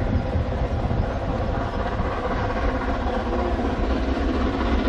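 Narrow-gauge steam locomotive approaching while still out of sight round the bend, a steady working sound that grows a little louder near the end.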